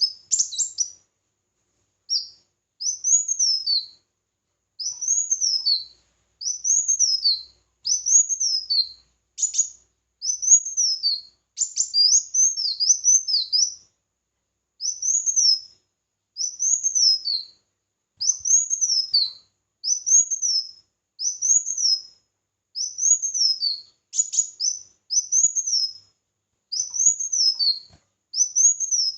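A small songbird singing the same short, high, thin phrase over and over. Each phrase rises and then falls, and they come about once a second with brief gaps.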